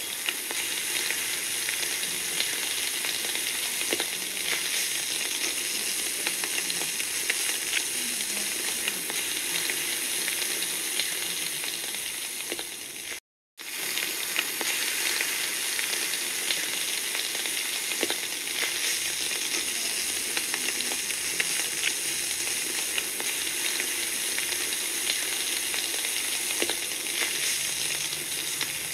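Meat and vegetables sizzling on a charcoal grill: a steady hiss with scattered crackles and pops. The sound drops out completely for a moment a little before halfway.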